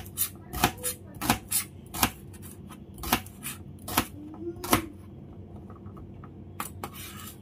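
Kitchen knife chopping celery stalks on a metal cutting board: sharp chops about two a second, pausing about five seconds in, then two more near the end.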